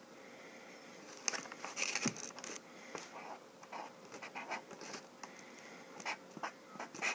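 Handwriting on the side of a cardboard box: short scratchy pen strokes in quick, irregular clusters, busiest about two seconds in.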